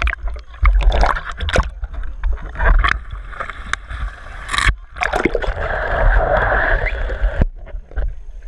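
Pool water sloshing and splashing against a waterproof camera housing held at the surface, with knocks, bumps and a heavy rumble as it moves in and out of the water. About seven and a half seconds in the sound turns suddenly quieter and muffled as the camera goes under.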